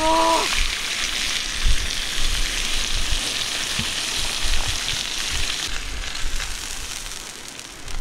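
Thick steak sizzling in a wrought-iron frying pan over a charcoal fire: a steady hiss that fades away about six seconds in, with a few low thumps.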